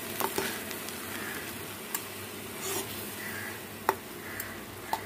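Chana dal and bottle gourd curry sizzling in a kadhai, with a steady hiss, as a spatula stirs it. The spatula clicks against the pan about four times.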